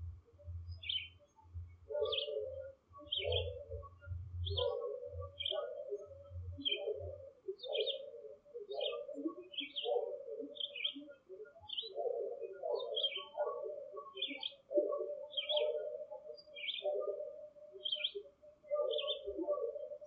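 Woodland birds calling: short high chirps repeat one or two times a second, over a busier layer of lower cooing and warbling calls. A low pulsing rumble sits underneath for the first several seconds and stops about seven seconds in.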